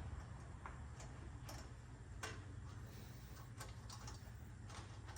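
Scattered light metallic clicks and ticks, about eight at irregular intervals, from hand tools working on a bolt and nut of the truck's exhaust hardware, over a low steady hum.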